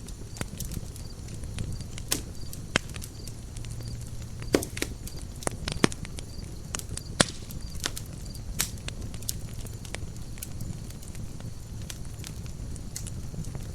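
Campfire burning: wood crackling and popping in frequent, irregular sharp snaps, with several louder pops through the middle, over a steady low rumble of the flames.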